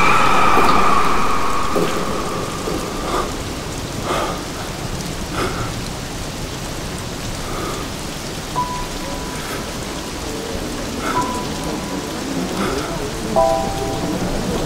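Heavy rain pouring and splashing on pavement. A ringing music note fades out over the first two seconds, and a few soft held notes sound in the second half.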